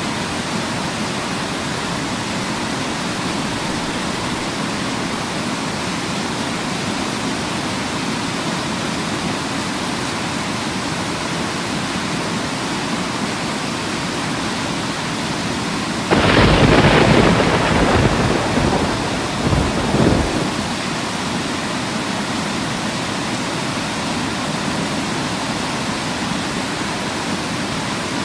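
Steady rushing noise of Bambarakanda Falls in flash flood, its muddy torrent pouring down the cliff amid rain. About 16 s in a louder, deeper burst of noise comes in suddenly and dies away over about four seconds, with two short swells near its end.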